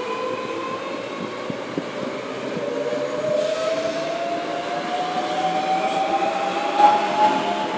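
Great Northern Class 365 electric multiple unit moving along the platform, its traction motors giving a whine that climbs steadily in pitch as it accelerates, over wheel and rail noise. A few light knocks come from the wheels, with a short louder clunk near the end.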